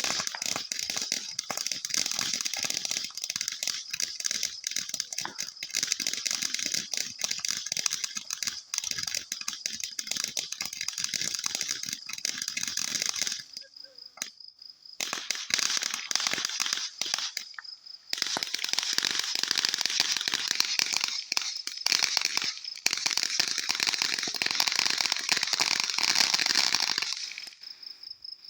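Fireworks crackling: a dense, rapid rattle of small pops in long stretches, broken by two short pauses, then stopping near the end. Crickets trill steadily underneath and are heard alone in the gaps and at the end.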